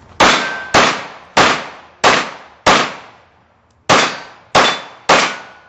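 Eight handgun shots: five at an even pace about two-thirds of a second apart, a pause of over a second, then three more at the same pace. Each shot trails a short echo.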